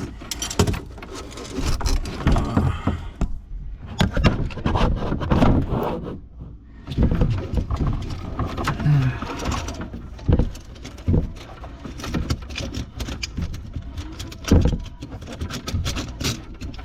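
Irregular clunks, clicks and scraping of hands and tools working under a kitchen sink, fastening a new faucet in place while it is tugged on.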